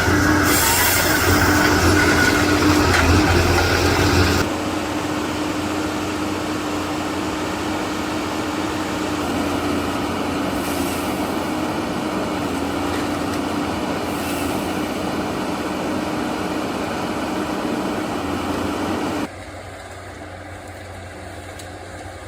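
Forestry machine's engine running steadily with a constant hum. The sound drops suddenly in level about four seconds in and again near the end.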